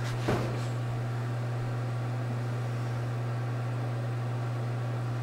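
Steady low electrical-sounding hum with an even hiss behind it, and one brief sound about a third of a second in.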